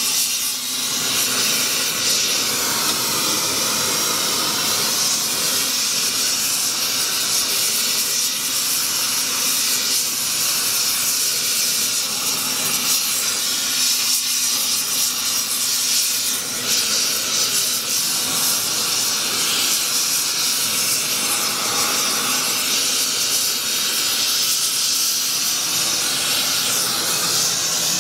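Oxy-propane torch burning with a steady hiss as it heats a copper boiler's backplate joint for silver soldering.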